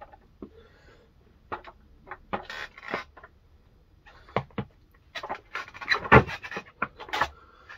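Skateboard on a hard rug: shoe scuffs and light knocks as the rider sets his feet on the board, then a burst of knocks from a frontside 180 shove-it. The loudest is the board's landing clack, a little after six seconds in.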